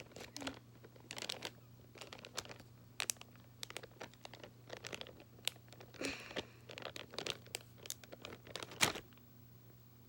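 Hands working slime that has had too much activator added: faint, irregular sticky clicks, crackles and small tearing pops, with a louder snap near the end.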